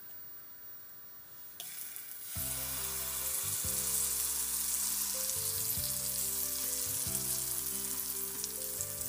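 Pancake batter sizzling as it hits melted butter in a hot non-stick frying pan: the hiss starts suddenly about one and a half seconds in, grows louder as more batter goes in, and then holds steady as it fries.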